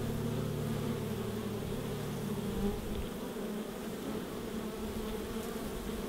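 Many honey bees buzzing around a hive entrance, a steady hum.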